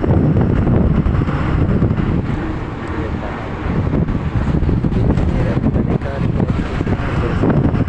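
Wind buffeting the phone's microphone: a loud, uneven low rumble and rush, with a brief easing about three seconds in.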